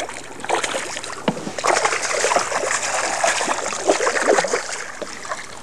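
A hooked bass thrashing at the water's surface beside a boat, with irregular splashing throughout.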